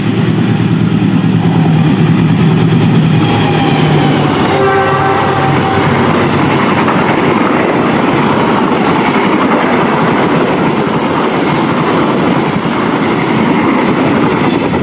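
Passenger train passing close by. The diesel-electric locomotive's engine runs with a steady hum as it approaches, its horn sounds once briefly about four and a half seconds in, and then the coaches rumble past with wheels running on the rails.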